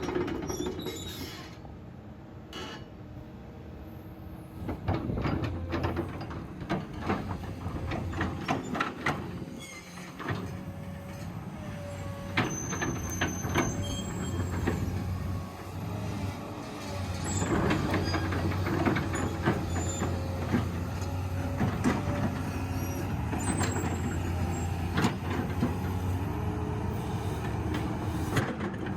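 Komatsu PC210LC-7 excavator working: its diesel engine runs steadily under many sharp metallic knocks and clanks.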